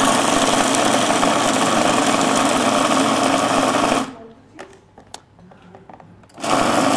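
Countertop food processor running loud and steady, chopping a thick mix of dried fruit and nuts into energy-ball paste. It stops about four seconds in, a few light clicks follow, and it starts again about two and a half seconds later.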